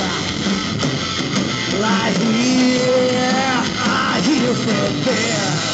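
Live rock band playing loud, with electric guitar, bass guitar and drums together, between chorus lines of the song.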